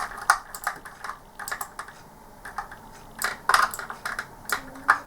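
Irregular run of small sharp clicks and taps: a screwdriver driving the screws into the plastic case of a Logic3 mouse, plastic parts knocking as it is handled.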